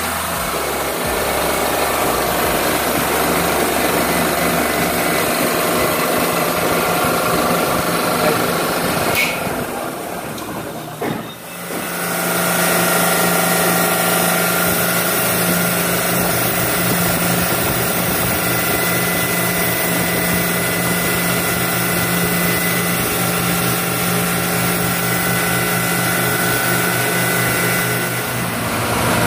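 Multi-stage high-pressure breathing-air compressor running loudly and steadily on a test run to diagnose a fault. About ten seconds in, the sound dips briefly, then settles into a steadier run with a constant low hum.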